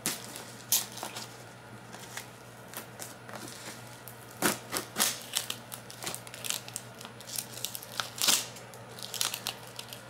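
Packing tape on a cardboard parcel being slit with a plastic safety box cutter and pulled apart: irregular short scrapes, crinkles and tearing, the sharpest strokes less than a second in, around the middle, and about eight seconds in.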